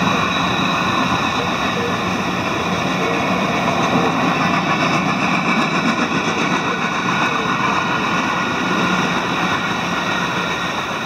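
Freight cars of a passing train rolling by: a steady rumble and clatter of steel wheels on the rails, easing off near the end as the last cars go past.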